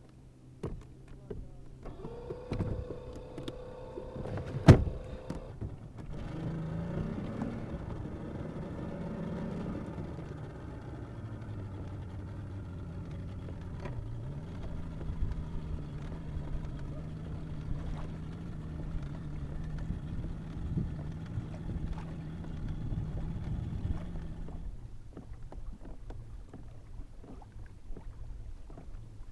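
A boat's engine running as a steady hum, its pitch shifting for a few seconds before holding steady, then stopping a few seconds before the end. A single sharp knock about five seconds in.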